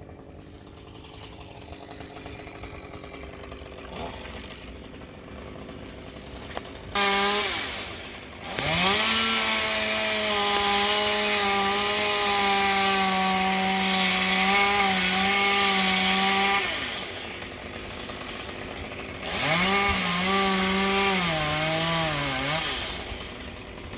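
Two-stroke chainsaw revved to full throttle about seven seconds in, then run flat out for about eight seconds with its pitch sagging slightly under load as it cuts wood. It drops back, then revs again for a second cut of about three seconds, bogging down in pitch before letting off.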